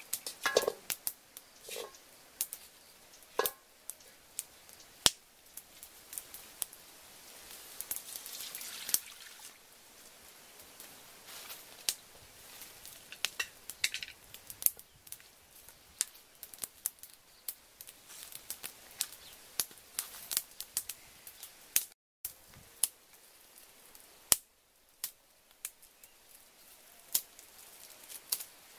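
Outdoor cooking over a wood fire: scattered sharp clicks and crackles from the burning firewood and knocks and scrapes from a metal wok being set down and handled, with a short hiss about eight seconds in.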